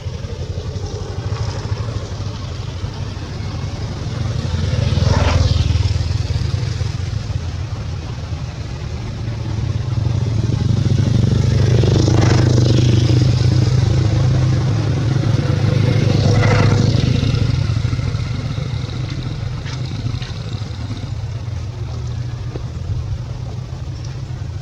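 Low engine hum of passing road vehicles, swelling louder about five seconds in and again for several seconds through the middle.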